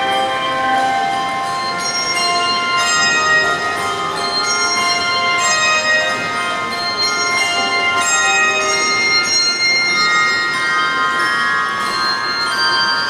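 High school handbell choir playing, many bells struck together in chords and left ringing, with new notes struck every second or so over the ones still sounding.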